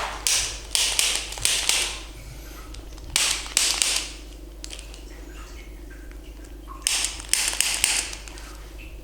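Ratchet-like mechanical clicking and rattling from a chiropractic treatment table, in three short runs of quick strokes: at the start, at about three seconds, and again near the end.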